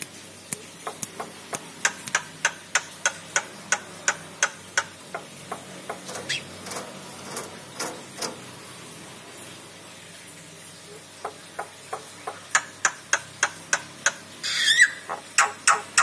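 Caged starling (jalak) giving a long series of sharp clicking chips, about two to three a second. They pause briefly, then come faster and louder, with a short harsh call near the end.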